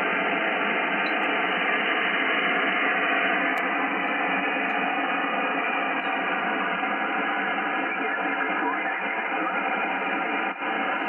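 Shortwave receiver hissing with steady static on the 18 MHz amateur band in SSB mode, the noise cut off above and below a narrow voice passband. The level briefly dips about ten and a half seconds in.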